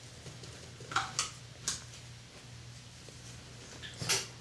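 A few short, soft handling noises as fingers press and shape Play-Doh modelling compound on a table, over a steady low hum. There are three quick ones about a second in and a slightly longer one near the end.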